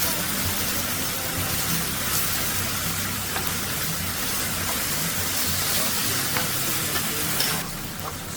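Food frying in a hot pan with a steady sizzle that drops away sharply near the end.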